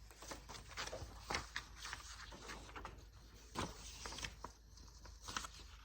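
Scattered soft taps and clicks of small objects being handled: irregular knocks with no steady rhythm, the clearest about a second and a half in, at about three and a half seconds, and near the end.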